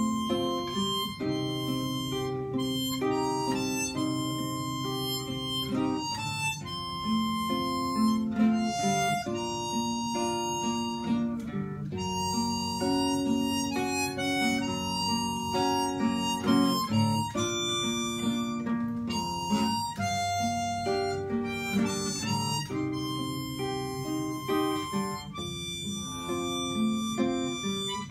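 Harmonica playing a slow melody in held notes over a classical nylon-string guitar's plucked accompaniment: an instrumental break in a hymn.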